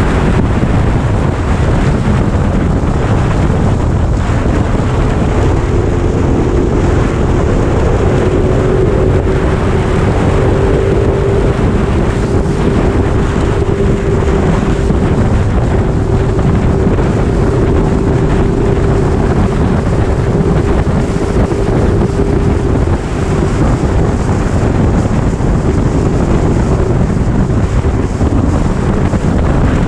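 Motorcycle engine running at a steady cruising speed, its note holding nearly even, under heavy wind noise on the microphone.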